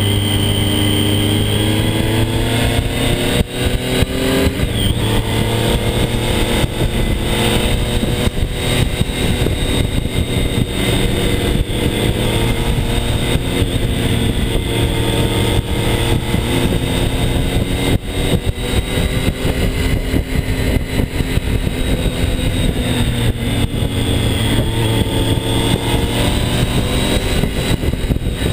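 Triumph Street Triple R's inline three-cylinder engine under way, with wind noise on the microphone. The engine note rises over the first few seconds and breaks briefly after about three seconds, then runs fairly steady with small rises and falls in pitch.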